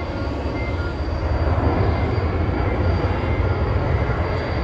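Steady low rumble of jet aircraft noise at an airport, with a faint high whine over it, swelling a little towards the middle.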